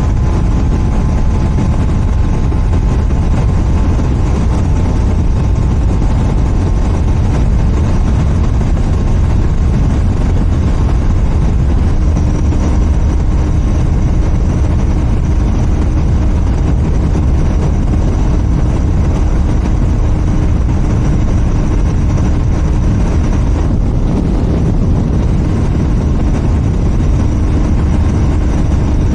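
Royal Enfield Continental GT 650 parallel-twin engine running through its stock exhaust while the bike cruises on an open road, with a steady heavy low rumble. A faint held tone joins in about twelve seconds in and fades out later.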